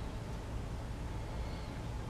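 Steady low background rumble with a light hiss and no distinct event.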